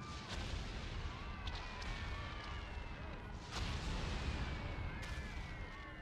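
Air-raid sound effects: long, slowly falling whistles like dropping bombs over a low rumble, with several blasts, the largest about three and a half seconds in.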